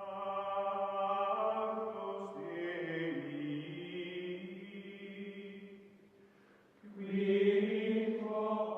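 Music of long held tones in several pitches that change slowly. It fades away about six seconds in and swells back a second later, stopping just after the end.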